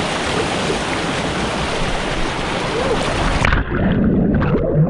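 Loud steady rush of waterfall water. About three and a half seconds in, it turns suddenly muffled, with gurgling water sounds.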